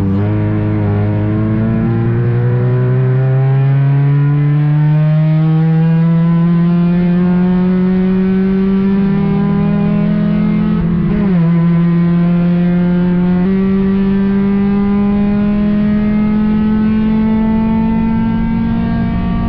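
Ford Courier race car's engine heard from inside the cockpit, pulling hard with the pitch climbing slowly. About eleven seconds in the pitch drops sharply at a gear change, then climbs again.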